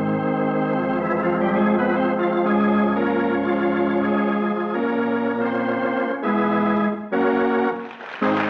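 Organ playing a musical bridge of held chords that change every second or two, with short breaks near the end: the curtain music closing the first act of a radio play.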